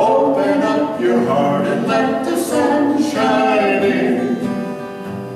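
A man and a woman singing the closing line of a country children's song together in harmony with acoustic guitar, ending on a long held note that fades away near the end.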